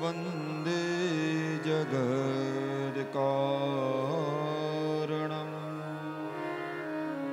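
Slow devotional chanting in Indian classical style: a male voice draws out long, ornamented notes with pitch slides over a steady sustained drone accompaniment. The voice drops out about five seconds in, leaving the held drone.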